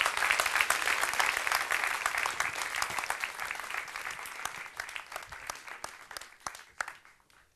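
Audience applauding, strongest in the first couple of seconds, then gradually thinning to a few scattered claps before stopping near the end.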